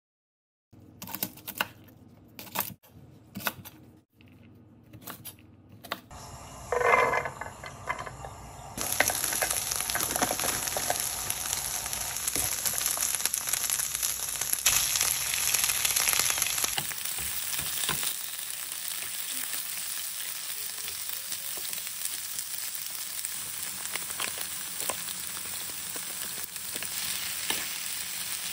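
Garlic scapes and garlic cloves sizzling in olive oil in a frying pan, later with rice, stirred with a wooden spatula; a few knocks and clicks come first, and the steady sizzling starts about nine seconds in.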